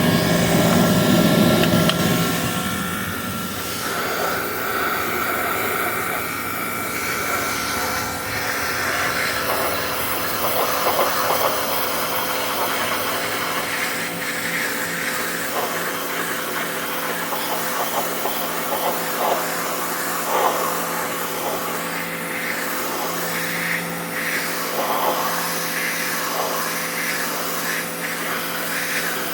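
Pressure washer running, its pump motor giving a steady hum under the hiss of the water jet, which flickers as it sweeps across a painted rifle to wash off the dish-soap resist layer. A louder stretch in the first two seconds or so settles to an even level.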